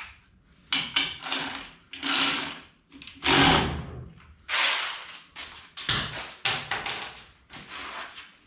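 A series of about five short bursts of scraping and clattering, roughly a second apart, from tools or parts being handled and moved.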